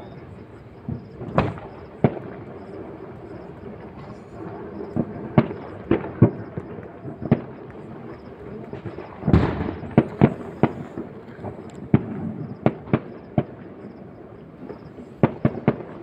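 Firecrackers bursting one after another at uneven intervals, with a loud cluster of bangs about nine seconds in.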